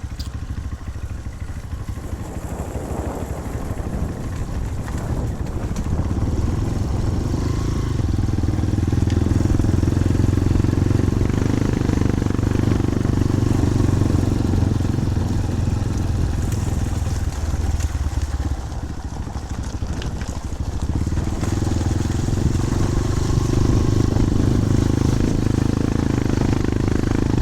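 Motorcycle running on the move, a steady low engine and road rumble that swells several seconds in, eases briefly about two-thirds of the way through, then picks up again.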